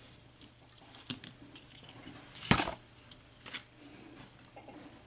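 A few small metallic clicks and taps as the lock's pins and parts are handled on the bench, the loudest about two and a half seconds in.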